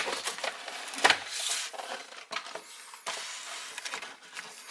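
Camera packaging being handled: cardboard and plastic wrapping rustling and scraping, with sharp knocks right at the start and about a second in.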